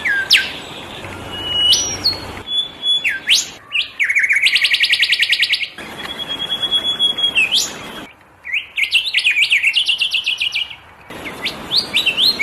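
A bird whistling and chirping: held whistles, sharp up-and-down sweeps and fast rattling trills at about a dozen notes a second. The background changes abruptly several times.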